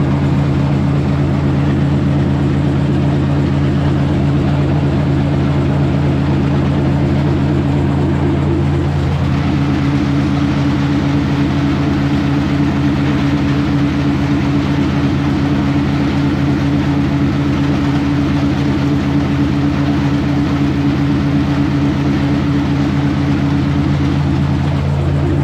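International 1256 tractor's six-cylinder diesel running steadily at working speed, powering a grinder mixer as it unloads feed through a small 4-inch auger. The note shifts slightly in pitch about nine seconds in and again near the end.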